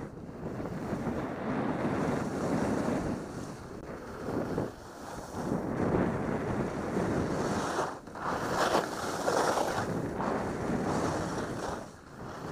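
Wind rushing over a helmet camera's microphone during a ski descent, mixed with the hiss and scrape of skis on packed snow. The sound swells and fades with each turn, hissier in the stronger surges.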